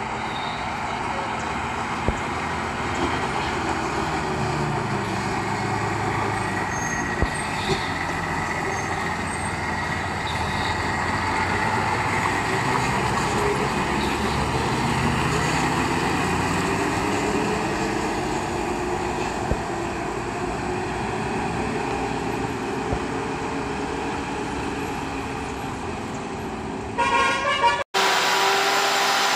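Diesel engine of a heavily overloaded lorry running as it comes down a hairpin bend and passes close by, growing louder toward the middle and then fading. Near the end a truck horn sounds.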